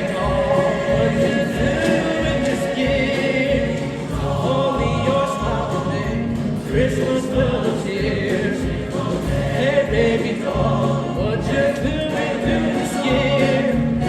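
A choir singing with instrumental accompaniment, many voices holding sustained notes together.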